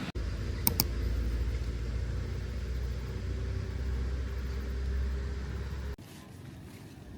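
Steady low rumble of a running vehicle, with two sharp clicks about a second in. It cuts off abruptly near the end, giving way to a quieter hiss.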